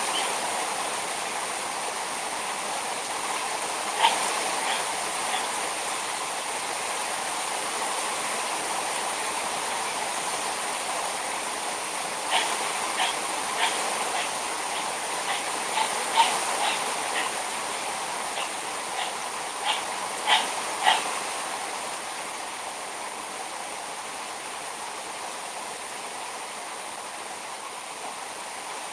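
Heavy rain pouring down steadily, with scattered sharp taps, most of them in a cluster in the middle; it gets a little quieter in the last few seconds.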